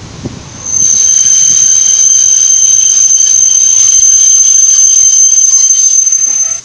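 Steam whistle of the Ol49 steam locomotive blowing one long, steady, high-pitched blast of about six seconds, starting about a second in and cutting off sharply near the end.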